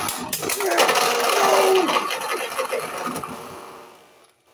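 Beyblade tops spinning and clashing in a plastic stadium: a fast, dense rattle with quick clicks of the tops striking each other and the stadium walls. It dies away over the last second or so as the tops slow.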